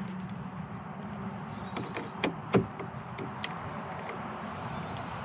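Hand screwdriver working the screws of a plastic RV keyless lock handle, giving a few sharp clicks and taps, the two loudest a little past two seconds in.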